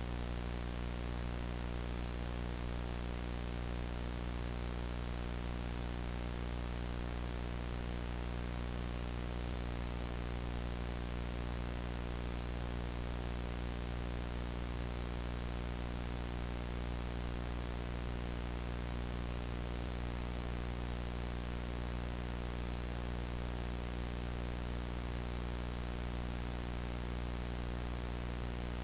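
Analog VHS tape static: a steady hiss across the whole range of pitch with a low buzzing hum beneath it, unchanging throughout.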